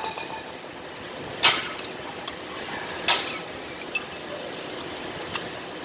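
A few sharp metal clinks and taps, three louder ones spread irregularly, over a steady background noise.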